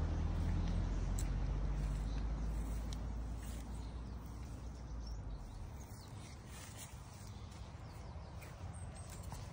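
Quiet outdoor garden ambience: a low wind rumble on the microphone that fades over the first few seconds, with faint bird calls.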